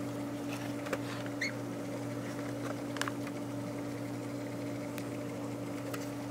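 Faint handling noises of a cardboard product box and its plastic-wrapped contents being opened: a few light taps and rustles over a steady low hum.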